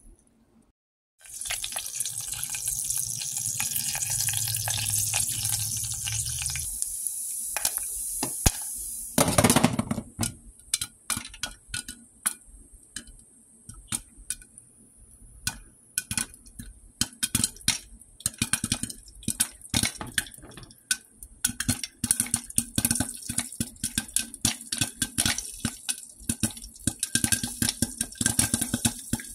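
Popcorn kernels heating in hot oil in a stainless-steel pot: a steady sizzle for several seconds, a loud metallic clank about nine seconds in, then popping under the lid. The pops are scattered at first and come faster and more steadily toward the end.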